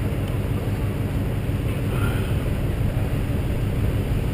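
Pickup truck engine running with a steady low rumble, heard from the truck bed, with some wind on the microphone.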